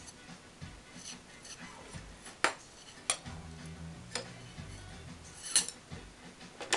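Tent pole sections and their fittings clicking and knocking together as they are handled during reassembly: several sharp, separate clinks spread over a few seconds.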